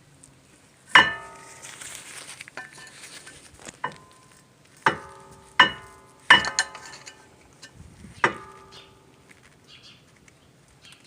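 Steel tools, a pry bar and a flat screwdriver, knocking and clinking against a Brembo brake caliper as its pistons are pressed back, about seven sharp metallic clinks that each ring briefly.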